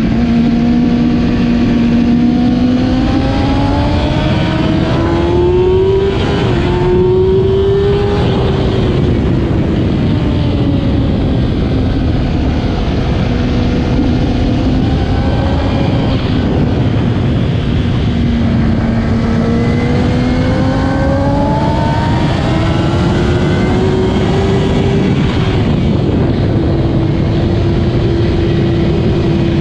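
2008 Kawasaki ZX-10R inline-four engine running hard under race conditions, loud throughout. The revs climb, break briefly for a gear change about six seconds in, fall away through a long stretch, then climb again with another break near the end.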